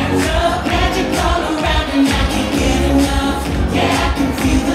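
Upbeat pop music with singing over a steady beat.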